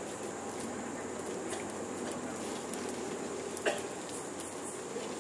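Steady background din around a homa fire ritual, with faint scattered ticks and one sharp click about two-thirds of the way in.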